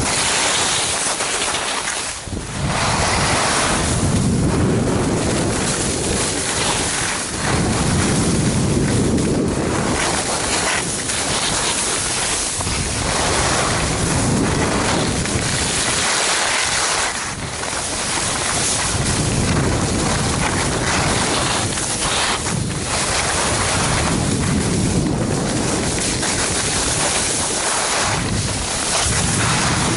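Wind rushing over the microphone of a skier going downhill, mixed with skis hissing over packed snow, swelling and easing in waves every few seconds as the skier turns.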